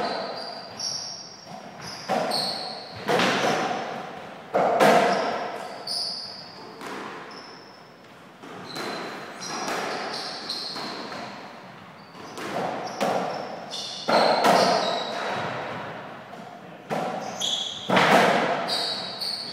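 Softraquet rally: racquet strikes and the ball hitting the court walls and floor, a sharp echoing knock every second or two, with short high squeaks in between.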